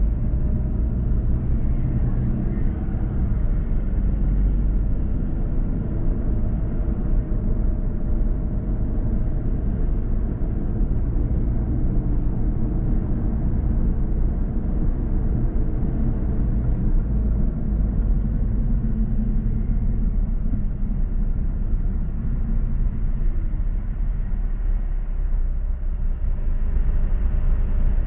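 Steady low rumble of a car driving: road and engine noise from the moving car.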